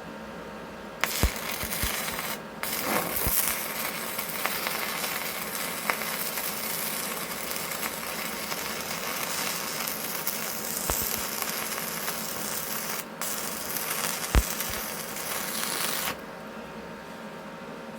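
Stick-welding arc of a 3/32-inch E6011 rod at about 75 amps, a steady crackling hiss with occasional sharp pops. The arc strikes about a second in, drops out twice for an instant, and is broken off near the end.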